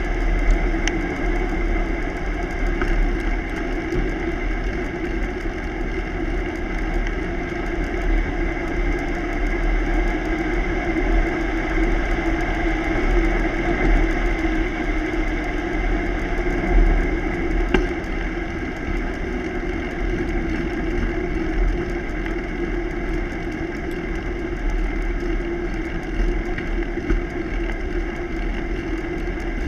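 Bicycle riding along a paved road: steady tyre and drivetrain hum, with wind buffeting the microphone in an uneven low rumble.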